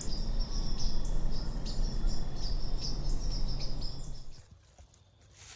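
Crickets chirping in a steady insect chorus over a low rumble. About four seconds in, both cut off abruptly, leaving only a faint background.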